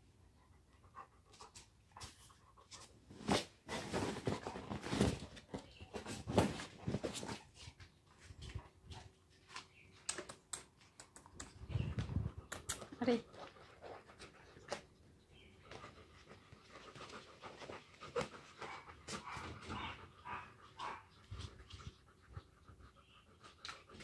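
A dog panting in several bursts of rapid breaths, with scattered light clicks in between.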